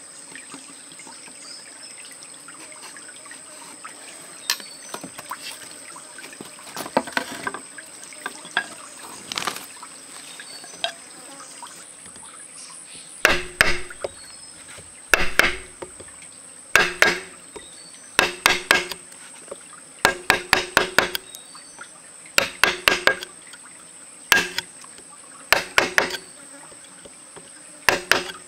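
A knife chopping a notch into a green bamboo pole. Quieter scraping and a few taps come first; from about halfway, sharp knocks arrive in quick groups of two to four, every one and a half to two seconds. A steady high-pitched insect drone sounds underneath.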